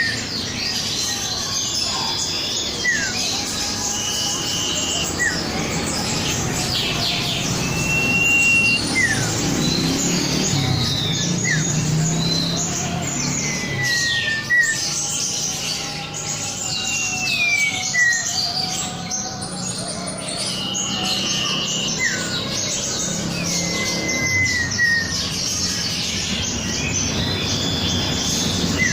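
An iora (cipow) singing persistently, a mix of long held whistles and short downward-sliding whistled notes repeated every second or two, over a dense background of chattering calls.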